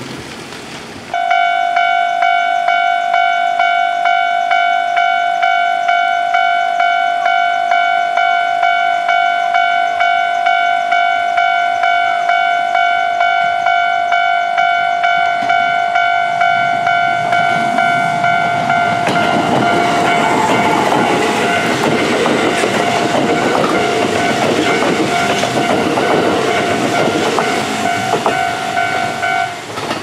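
Japanese railway level-crossing alarm ringing, an electronic clang repeating at a steady beat, starting about a second in and stopping just before the end. From about two-thirds of the way through, a Kintetsu 2800 series electric train is heard running close by over the rails with wheel clatter, growing loud.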